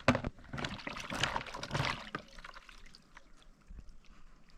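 Water splashing and pouring as raw chicken pieces are washed by hand. A sharp knock comes right at the start, and quieter clicks follow once the splashing dies down, about two seconds in.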